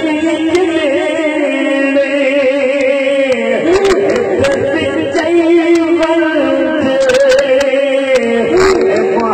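A man singing solo into a microphone, amplified through a sound system, in long held notes that waver and glide between pitches.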